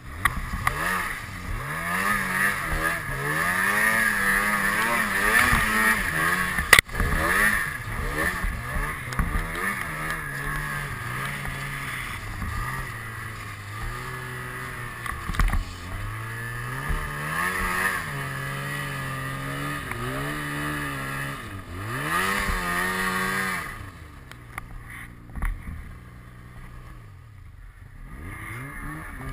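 2007 Ski-Doo MXZ 600 XRS snowmobile's two-stroke twin engine revving up and down repeatedly while riding through snow. Near the end the engine note drops off and runs low and quiet.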